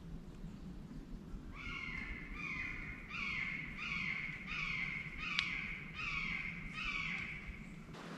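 Crow cawing: a steady series of about seven harsh caws, roughly one a second, with one sharp click about five seconds in.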